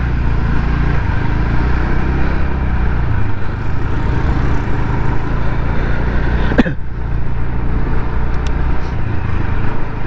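Motor scooter running at low speed: a steady engine hum with rushing wind on the microphone, and one short click about two-thirds of the way through.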